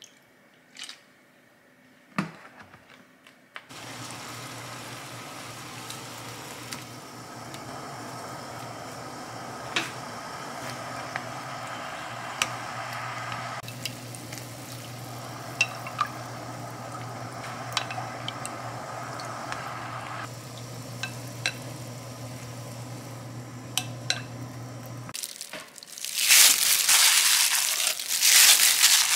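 Food sizzling in hot oil in a pan, a steady sizzle over a low hum with scattered small pops. It stops abruptly a few seconds before the end, and loud crinkling follows.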